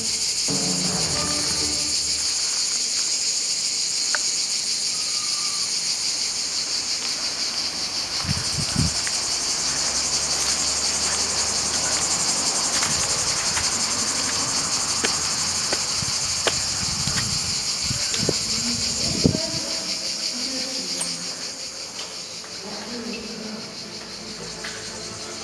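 Loud, steady, high-pitched chorus of summer insects, unbroken and dense, with a few low thumps and clicks of footsteps and handling. The chorus drops in level a little after three-quarters of the way through.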